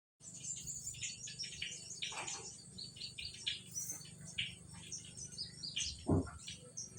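Birds chirping in many quick, short calls over a low steady hum, with one short, louder low sound about six seconds in.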